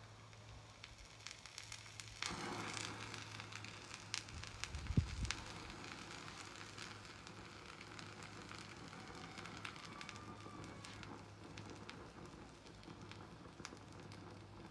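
Potassium permanganate and glycerin igniting: the mixture flares up suddenly about two seconds in, then hisses and crackles as it burns and smokes. A low thump comes about five seconds in.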